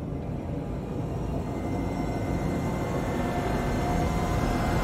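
Rumbling sound-effect build for an animated logo, swelling slowly louder, with thin steady tones coming in after a second or two; it is a riser leading up to the logo reveal.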